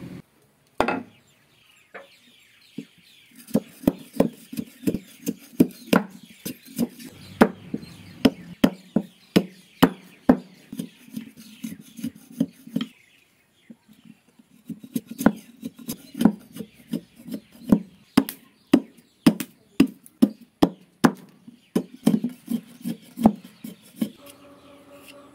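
A curved sickle-type blade chopping and chipping the end of a bamboo stick against a wooden block: a run of sharp knocks, about two a second, with a short pause about halfway.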